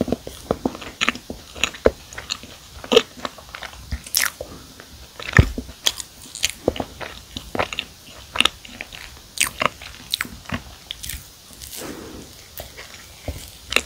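Chewing and biting into a thick chocolate cookie topped with marshmallow, close to the microphone: a run of many sharp, irregular mouth clicks, smacks and bites.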